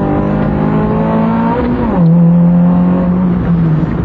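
Citroën C2 rally car's engine heard from inside the cabin, pulling hard with its pitch slowly climbing, then dropping quickly just under two seconds in as the driver shifts up, and running steady under load at the lower pitch.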